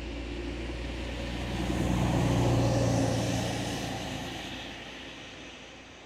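A motor vehicle driving past, its engine and tyre noise growing to loudest about two and a half seconds in, then fading away.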